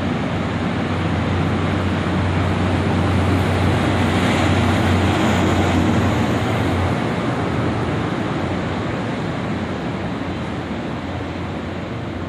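Saemaeul-ho passenger train departing and running past close by: an even rumble of the moving cars with a steady low drone, both loudest about five seconds in as the last car goes by, then fading as the train pulls away.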